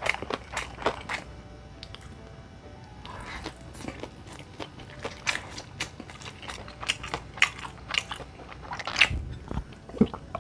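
Close-up chewing and biting of a pan-fried ramen pancake, mixed with short sharp clicks of a knife and fork on a ceramic plate. A louder knock comes near the end.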